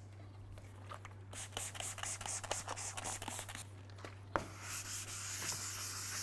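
400-grit sandpaper worked by hand over the wet, crazed paint of a 1975 Ford Gran Torino's body panel, wet-sanding the finish down. First comes a run of small scratchy clicks, then a sharp click about four seconds in, then steady hissing strokes of paper on paint.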